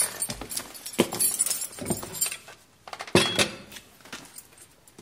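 Radio-drama sound effects of a jailer bringing supper to a cell: keys jangling and glass and dishes clinking, with sharper knocks about one, two and three seconds in.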